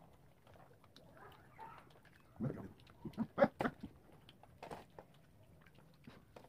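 People eating, with a few short grunting voice noises and clicks bunched together about two and a half to four seconds in.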